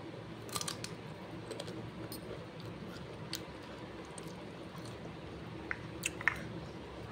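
Short crisp snaps and crunches of raw green ambarella (amra) fruit as pieces are broken off by hand: a cluster about half a second in, one in the middle and a few more near the end, the loudest among them. Under them runs a steady low background hum.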